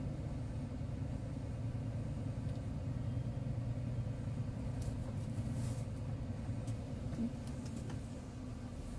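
Vehicle engine and road noise heard from inside the cab while driving: a steady low rumble.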